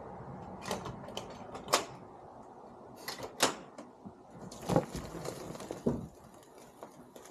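Sharp knocks and clicks from a hard-shell rooftop tent's lid and latches being handled. About two-thirds in, the lid lifts open and the tent fabric unfolds with a steady rustle.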